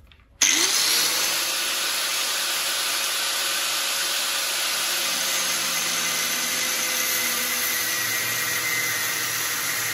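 Angle grinder switched on about half a second in, its motor spinning up with a rising whine and then running steadily at full speed as its disc grinds into a stainless steel bolt held in a vise.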